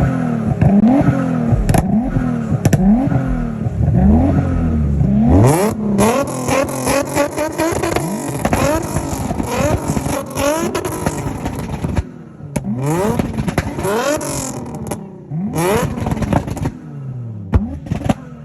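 Tuned car engine revved again and again, first in quick blips a little under a second apart, then in longer revs with a rattle of sharp exhaust pops. The sound dips briefly about twelve seconds in, and a few more revs follow.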